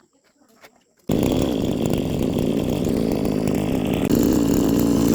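Small petrol lawn mower engine catching about a second in and running for about four seconds, its speed rising slightly near the end, then cutting off suddenly.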